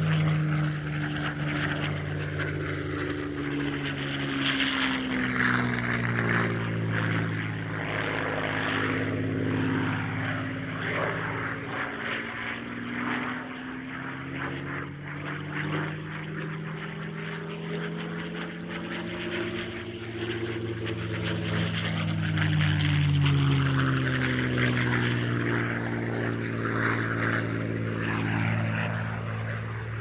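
North American B-25 Mitchell bomber's twin radial piston engines and propellers running, a continuous drone whose pitch slowly wavers up and down. It swells louder a few seconds in and again past the two-thirds mark, dips in between, and fades near the end.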